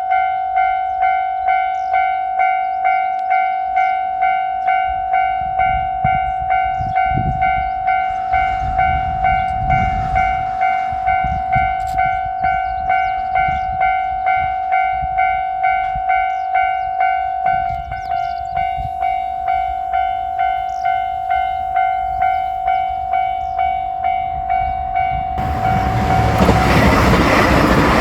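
Japanese railway level-crossing alarm ringing its evenly repeated 'kan-kan' bell. Near the end, a diesel limited-express train passes close by with a loud rush of noise that drowns out the bell.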